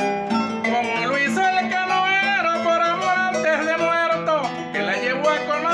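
Harp accompaniment plucked under a man's singing, which holds long notes that slide and bend in pitch.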